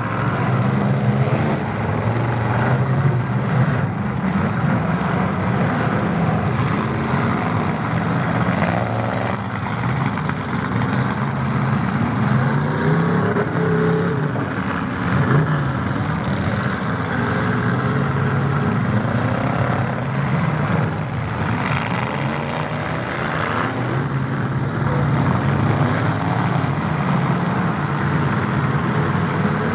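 Several demolition-derby pickup trucks' engines running loud and revving, the pitch rising and falling over and over as the drivers push against each other.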